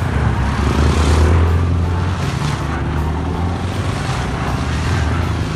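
Yamaha FZ25's single-cylinder engine running steadily at highway cruising speed, with wind and road noise.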